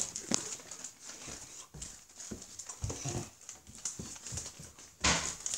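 Footsteps going down a flight of stairs: irregular soft thumps, with the recording device rubbing and rustling against a T-shirt. A louder rush of rubbing noise comes near the end.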